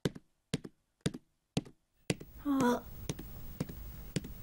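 Cartoon footstep sound effects: light steps on a wooden floor, about two a second. A short wordless vocal sound from a small child comes a little past halfway.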